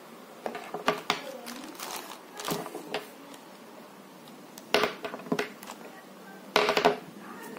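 Rustling and light clicks as a CCTV camera's cable and connectors are handled over its plastic bag, and the plastic crinkles. Two short, loud pitched sounds come in about five seconds in and again near the end.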